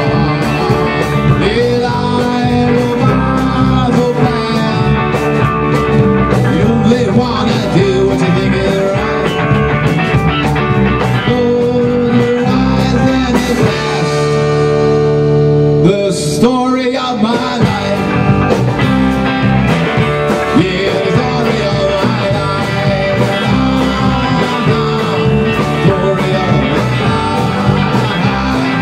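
Rock band playing live: two electric guitars, electric bass and a drum kit in an instrumental passage. About halfway through, the drums stop and the band holds one chord for about two seconds, then the drums come back in and the band plays on.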